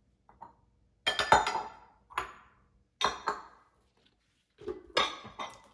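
White ceramic bowls clinking against one another and the stone countertop as they are nested into a stack: about six sharp clinks, each ringing briefly.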